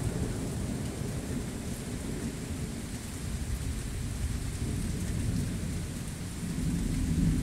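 Thunder rumbling low and long, with steady rain falling; the rumble swells again near the end.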